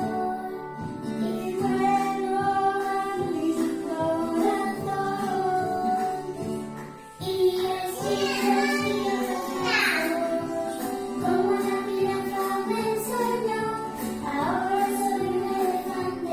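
A children's song for a yoga sun salutation, sung with instrumental backing.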